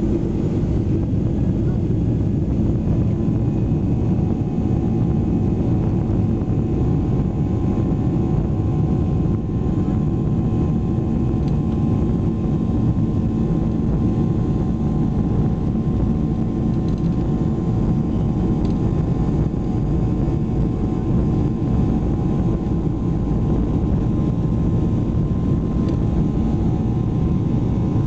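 Cabin noise of a Boeing 737-800 taxiing, heard from a window seat over the wing. Its CFM56-7B turbofans run steadily at taxi power: a dense low rumble with a faint steady whine.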